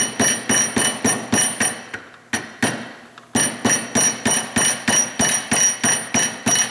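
Hammer tapping a screwdriver around the rim of the old rear tail shaft seal in a 4R55E automatic transmission, denting the seal to start it out: quick ringing metal-on-metal strikes, about four a second. The tapping breaks off for about a second two seconds in, then picks up again at the same pace.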